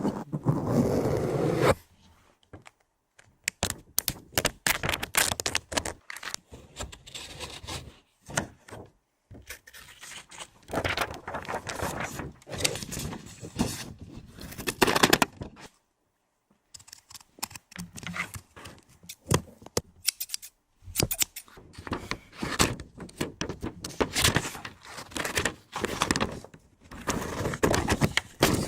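ASMR trigger sounds made close to the microphone: irregular tapping, scratching and rustling of objects in clusters, broken by a few short pauses, harsh and noisy rather than gentle.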